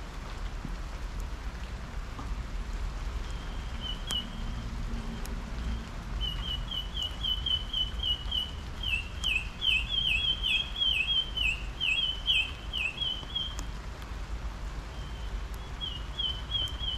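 Steady rain falling on a backyard and a wet metal table, with the odd sharp drip. Over it a songbird sings long runs of quick, repeated chirps from about four seconds in, thickest in the middle, and again near the end.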